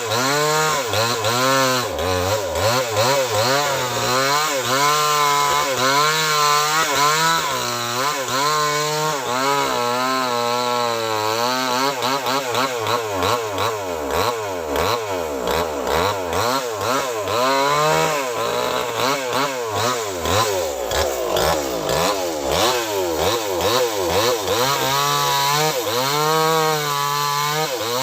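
Small chainsaw cutting into a big trunk, its engine speed rising and sagging about once a second as the chain bites and frees, and dipping lowest under heavy load a little past the middle.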